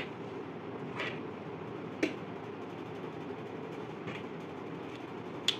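Steady low background hum with five short, light clicks and taps of a felt-tip marker and small cardboard pieces being handled on a wooden tabletop, roughly one a second.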